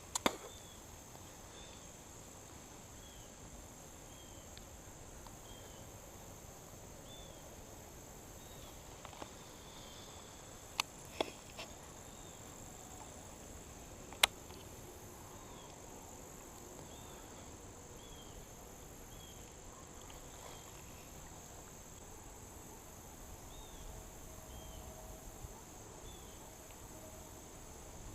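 Steady high-pitched drone of insects, with a faint short chirp repeating about once a second. A few sharp clicks break through, the loudest about fourteen seconds in.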